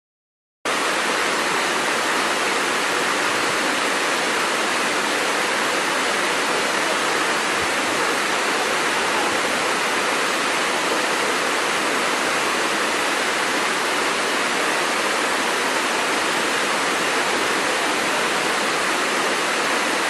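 Waterfall cascading over rocks: a steady, even rushing of falling water that starts abruptly just under a second in.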